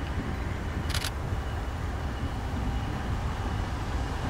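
Steady low outdoor rumble, with a short burst of rapid camera-shutter clicks about a second in.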